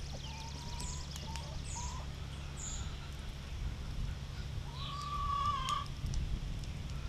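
Birds calling outdoors: short high chirps and whistles in the first few seconds, then one longer call about five seconds in, over a steady low hum with a few faint clicks.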